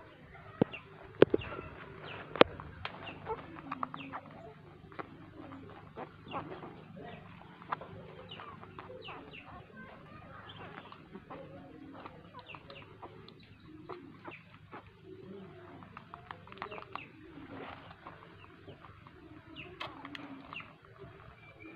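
Newborn puppies suckling at their mother, giving small squeaks and whimpers among short wet smacking clicks.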